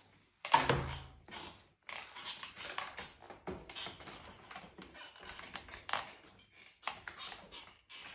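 Irregular rustling and handling noises of a person in a manual wheelchair bending far over the side to reach a pen dropped on the floor, with a bump about half a second in and a sharp knock near the end.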